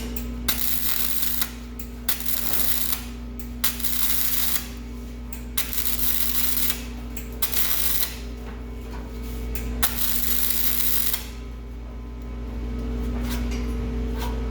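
MIG welder laying short tack welds on an exhaust pipe: about six separate bursts of sizzling, each around a second long, over a steady low hum.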